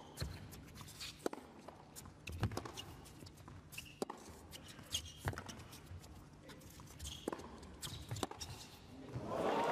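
Tennis rally on an indoor hard court: sharp pops of racket strings hitting the ball and the ball bouncing, one every second or so. Near the end a crowd starts to applaud and cheer as the point ends.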